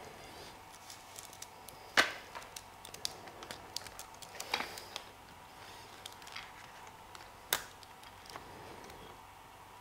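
Hands working a 3D-printed plastic cable chain and a bundle of wires: scattered small plastic clicks and ticks, with sharper clicks about two seconds in, halfway through and about three-quarters of the way in, the first the loudest.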